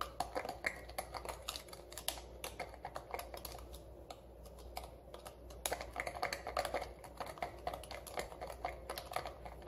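A metal spoon stirring chia seeds into almond milk in a small glass jar, clinking rapidly against the glass, with a lull about four seconds in.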